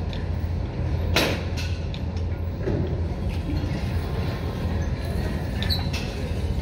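Gym ambience: a steady low rumble with a sharp metallic clank about a second in and a few lighter clinks, from weight machines and plates in use.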